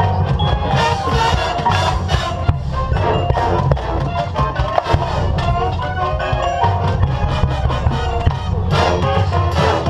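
Marching band playing its field show music: winds sounding held chords over steady drums and mallet percussion.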